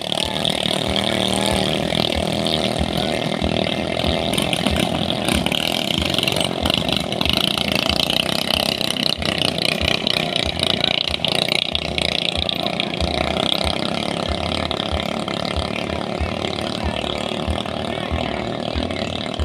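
Racing speedboat engines, stock motors, running loud and steady at speed.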